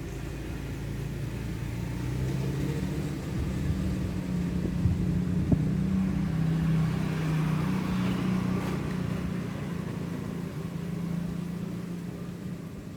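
A low motor hum with a steady pitch, swelling over the first half and easing off near the end, with a single brief tick about five seconds in.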